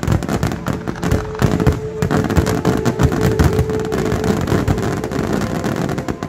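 Aerial fireworks going off in a dense barrage: shell bursts and crackling, many bangs a second without a break, with a steady tone held underneath for most of it.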